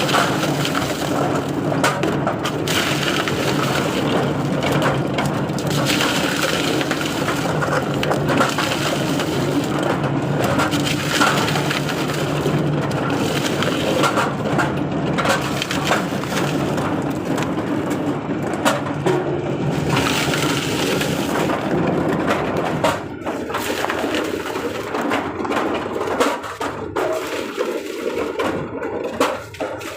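Coconut dehusking machine running and tearing the fibrous husks off coconuts, a dense crackling and crushing noise full of sharp cracks. About three-quarters of the way through it thins out and gets quieter.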